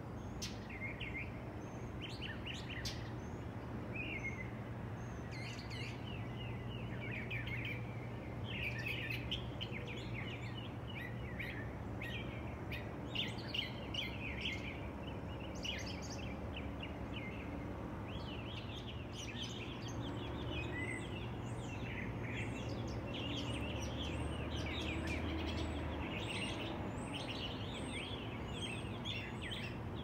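Many small songbirds chirping and calling at once, short high notes packed close together, over a steady low background hum.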